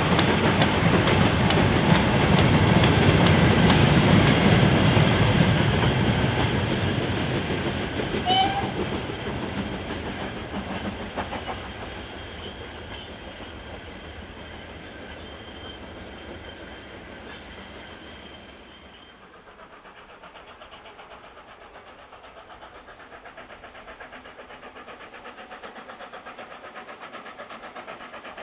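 Steam-hauled train passing close by. The noise is loud for the first five seconds or so, then fades steadily over the next dozen seconds as the train draws away, leaving only a faint rumble.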